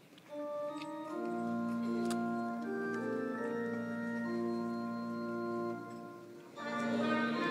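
Organ playing slow, held chords. After a short dip near the end, a louder, fuller passage begins.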